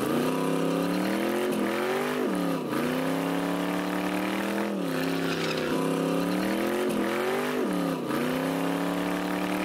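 Car engine held at high revs during a burnout. Its pitch creeps up and then drops sharply about four times, over the noise of the spinning rear tyre.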